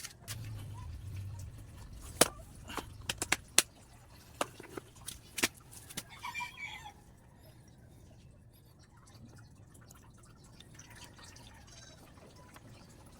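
A run of sharp clicks and knocks, about a dozen over four seconds, the loudest about two seconds in, followed by a short rasping rattle; then only faint background.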